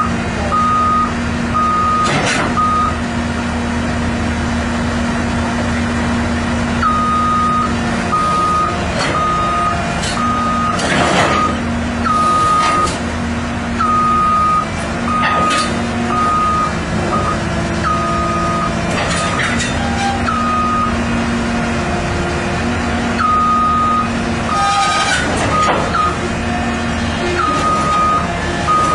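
CAT 319D LN excavator on the move: its travel alarm beeps at one pitch about twice a second, stopping for a few seconds now and then, over the steady running of its diesel engine. Several loud metal clanks are heard along the way.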